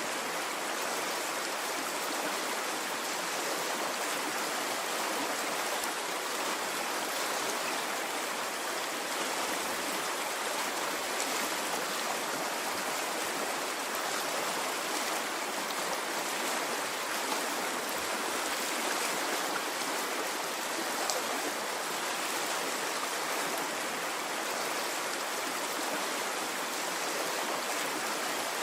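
A stream of water flowing and babbling steadily, with no rise and fall of waves.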